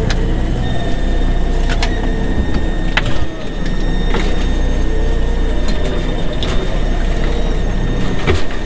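Boat engine running with a steady low hum, overlaid by a handful of sharp clicks and knocks from a wire crab pot being handled as crabs are sorted out of it.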